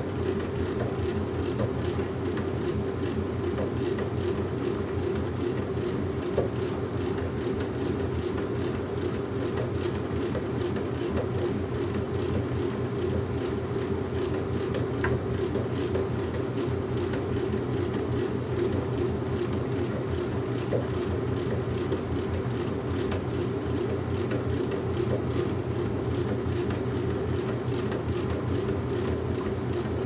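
Washing machine running: a steady, even rumble and hum with a few faint ticks.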